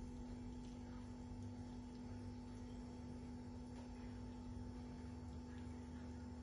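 Faint steady hum with a few soft scrapes of a silicone spoon serving spaghetti out of a non-stick pan.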